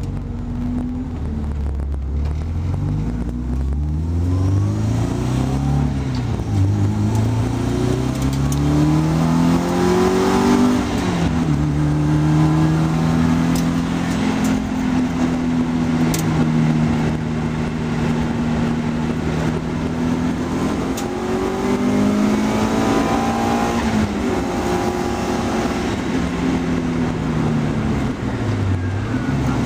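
Car engine heard from inside the cabin on a circuit, pulling hard through several gear changes, then holding steady revs before climbing again and dropping back as the driver lifts off and changes down.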